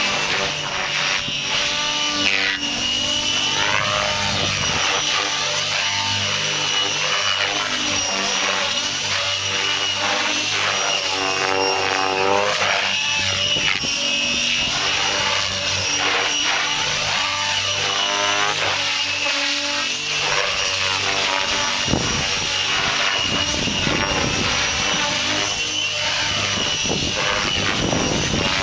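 Electric RC helicopter, a Vibe E-8 with a Scorpion 4035 brushless motor, flying 3D aerobatics. Its rotor and motor whine repeatedly rises and falls in pitch as it swoops and flips.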